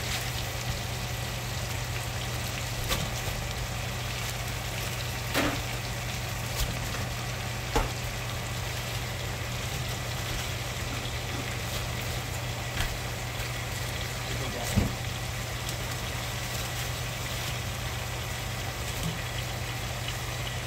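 Steady frying sizzle from cabbage leaves hitting a hot pot of bacon fat, over a constant low hum. A few soft knocks as more leaves are dropped in and handled.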